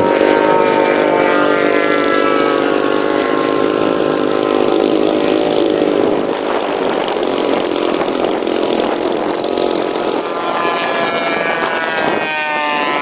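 Engines of giant-scale radio-controlled warbird model airplanes flying past overhead. The engine pitch falls slowly through the first several seconds, then another plane's engine rises and falls in pitch as it passes close near the end.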